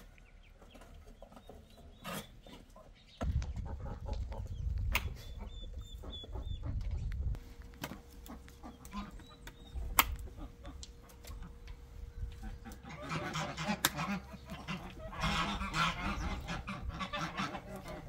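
Farmyard poultry clucking and calling, busiest in the last few seconds, with a few sharp knocks and clicks scattered through.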